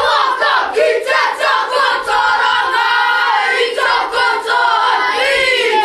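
A group of school children chanting and shouting in unison in a haka, loud and rhythmic.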